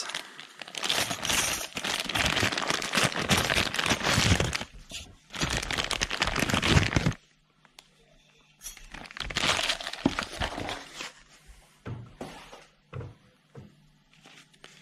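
Clear plastic parts bag crinkling and rustling as gloved hands open it and handle it, for about seven seconds. After a short lull there is more rustling, then a few light knocks.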